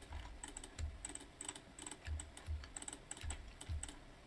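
Computer keyboard keys and mouse buttons clicking in irregular short runs while working in 3D modelling software.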